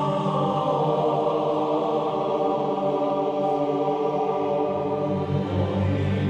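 Slow choral chant: voices holding long, sustained chords.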